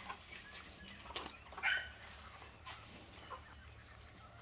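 A hen gives one short cluck about a second and a half in, over a faint background with a few small ticks.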